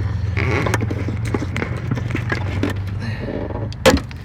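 Small clicks and taps of a plastic wiring-harness connector being worked loose by hand, with one sharp snap about four seconds in as it pops off. A steady low hum sits underneath and fades shortly before the snap.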